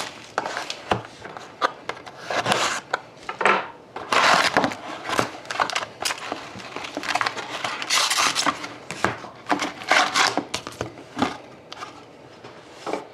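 Plastic shrink-wrap being stripped off a cardboard trading-card box, then the box opened and the card packs taken out and set down: a run of irregular rustles, scrapes and taps.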